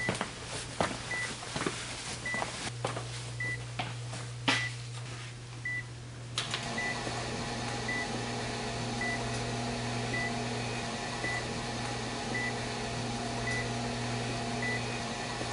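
Hospital patient monitor beeping steadily, one short beep about every second, over a steady low electrical hum. A few sharp clicks in the first seconds, and about six seconds in a fuller steady machine whir joins the hum.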